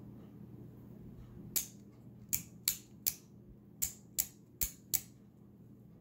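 Small keychain stiletto switchblade's spring mechanism clicking as it is worked: eight sharp metallic clicks over about three and a half seconds, several in quick pairs.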